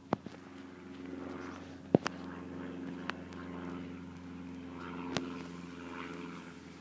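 A steady, low engine drone, with a few sharp clicks: one near the start, a louder one about two seconds in, and others about three and five seconds in.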